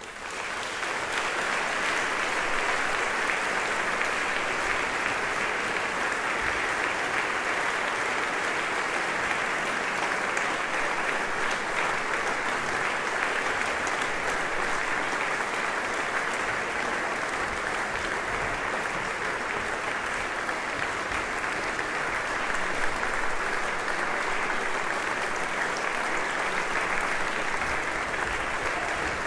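Audience applause, swelling in over the first second and then holding steady.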